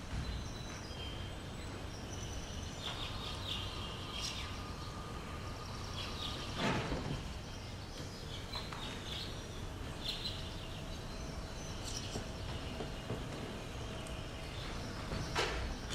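Thuds of a dancer's feet and body on a stage floor, a heavy one about seven seconds in and another near the end, over a steady hiss with faint high chirps.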